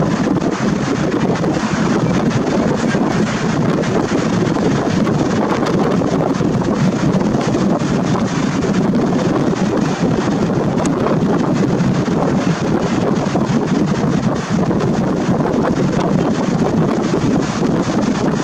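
Steady, loud wind rushing and buffeting over the camera's built-in microphone, a continuous rumbling hiss with no engine tone standing out.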